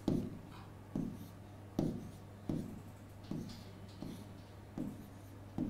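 Marker writing on a whiteboard: a series of short strokes, about one a second, over a faint steady low hum.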